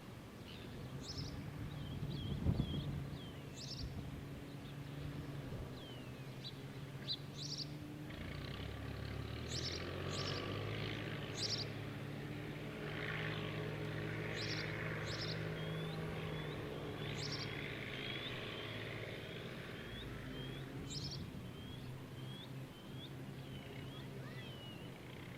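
Birds chirping, with many short high calls and repeated short downward whistles. A low engine drone from a distant motor vehicle swells through the middle and then eases off.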